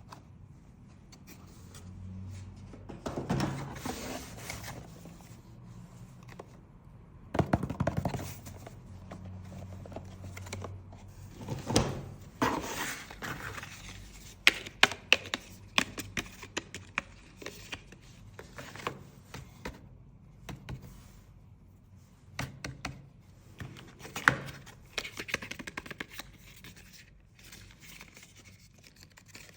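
Hands handling cosmetics packaging and product containers: a series of sharp clicks and taps, with a quick run of clicks about halfway through, between stretches of rustling and scraping.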